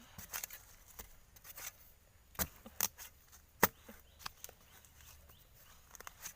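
A hand tool chopping at a wild bamboo shoot: four sharp strikes in the middle, the third the loudest, with lighter knocks and rustles around them.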